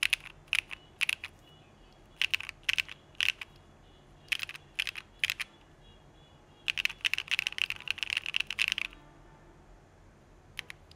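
Owlab London Fog linear switches, with polycarbonate housings and long-pole stems, clacking in a Geonworks Frog keyboard with an aluminum plate and CRP Desko keycaps. First come a few short groups of keystrokes, then a fast run of typing from about six and a half to nine seconds, and a single keystroke near the end.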